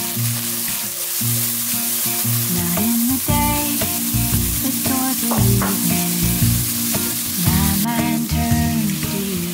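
Diced potato, carrot and squid sizzling in a hot nonstick frying pan, stirred with a silicone spatula; near the end water is poured into the pan. Background music plays underneath.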